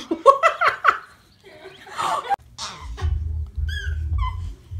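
Baby giggling and babbling in short bursts over the first second or so, and again briefly around two seconds. From about three seconds in there is a low, steady rumble, with a few short, high, falling squeaks just before four seconds.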